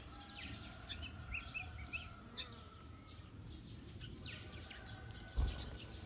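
Small birds chirping in many short, quick calls over faint outdoor background noise, with a low thump about five seconds in.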